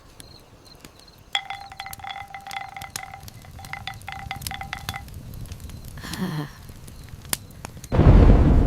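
Wind chimes tinkling with small clinks for a few seconds, followed by a falling tone. Near the end, a sudden loud rush of storm noise cuts in.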